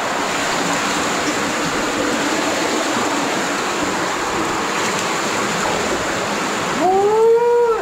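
Underground cave stream running steadily, an even hiss of fast-moving water. Near the end a person's drawn-out voice rises and falls in pitch for about a second.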